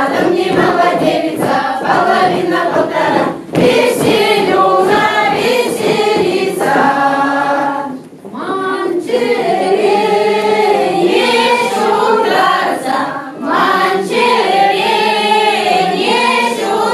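A Chuvash folk ensemble of men's and women's voices singing a round-dance song together, in phrases with three short breaks between them.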